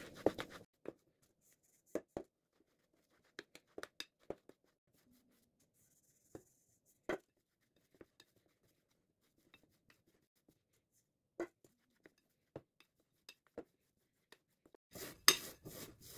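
Hands kneading sponge-cake crumbs into butter cream in a glass bowl: scattered faint clicks and taps with silent gaps between, growing denser near the end.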